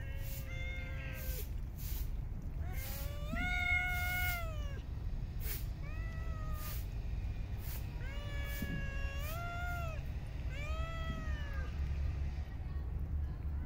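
Cats meowing repeatedly: about six drawn-out meows that rise and fall in pitch, the longest and loudest about three seconds in.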